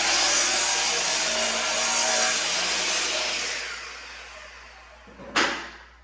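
An electric power tool's motor running steadily, then winding down over a second or two, followed by a single sharp knock near the end.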